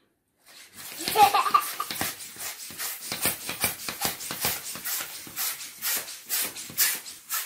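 Plastic hand balloon pump pushing air into a small rubber balloon: a run of short puffs of air, about three strokes a second. A short voice sound about a second in.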